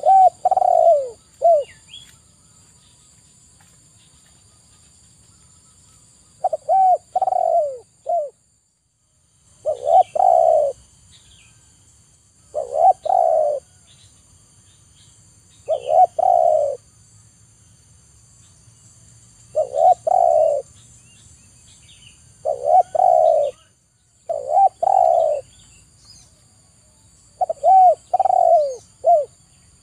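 Spotted dove cooing: about ten short phrases of two or three coos each, repeating every two to three seconds after a pause of about five seconds near the start.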